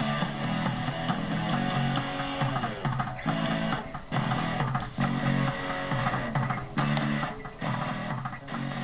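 Instrumental rock music with no vocals: electric guitar and bass playing chords in a chopped, stop-start rhythm.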